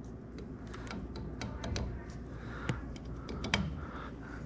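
Scattered light clicks and taps of a hitch-mount LED light being handled and fitted into a tow hitch receiver, with a couple of sharper clicks in the second half.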